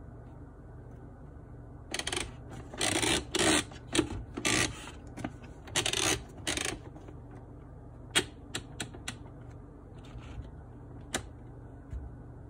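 Fellow Opus coffee grinder's grind-size adjustment ring being turned by hand, its detents clicking: a fast run of ratcheting clicks about two seconds in, lasting several seconds, then a few single clicks as the ring is stepped back to a setting.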